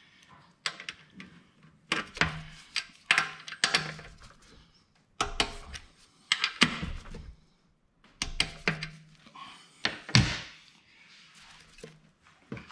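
Ratchet wrench and socket working the bracket bolts on a 168F small diesel engine: several short bursts of ratchet clicks and metal clinks with quiet gaps between them. A heavier thunk about ten seconds in.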